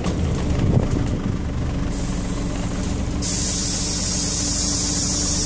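Inside a Scania OmniCity city bus, its Scania DC9 diesel engine running steadily at low revs. About three seconds in, a loud steady hiss of released compressed air from the bus's pneumatics starts and keeps on.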